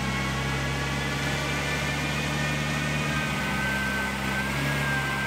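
Jaguar E-Type's straight-six engine running at steady revs on a rolling-road dyno while its new fuel injection is mapped for air-fuel ratio, with a thin high whine above it. The engine note dips briefly about three seconds in and settles a little higher soon after.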